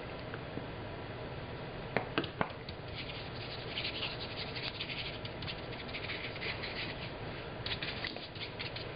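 A short round brush scrubbing and dabbing paint onto damp fabric: a rough scratching in uneven patches, with two sharp taps about two seconds in.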